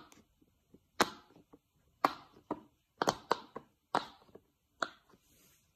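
Bubbles of a rainbow silicone pop-it fidget toy popping as fingers press them through. There is a sharp pop about once a second, sometimes two close together, with softer clicks between.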